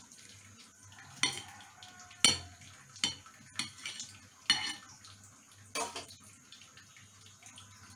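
Kitchen knife clinking and scraping against a plate while boiled chicken meat is stripped off the bone. There are about six sharp, ringing clinks, the loudest about two seconds in.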